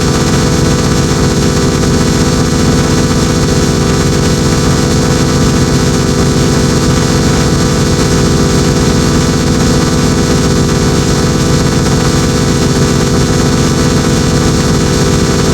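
A loud, dense mix of layered, distorted sound effects: a steady harsh wall of noise with many held tones and a fast buzzing pulse underneath, unchanging throughout.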